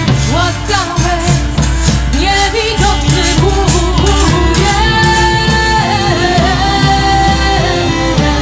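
Background music: a woman singing a folk-style song over drums and other instruments, with a long held note in the second half.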